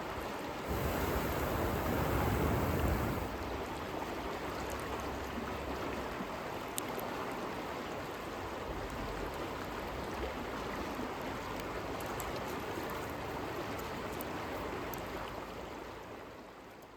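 Steady rushing of a river running past, louder for the first few seconds, with a few faint campfire crackles; the sound fades away near the end.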